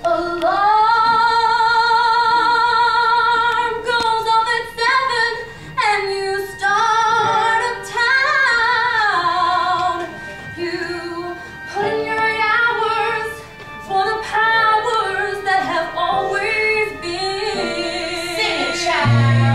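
Women's voices singing a musical-theatre number in harmony, with long held notes that waver with vibrato and little accompaniment beneath them. Deep bass notes from the band come in right at the end.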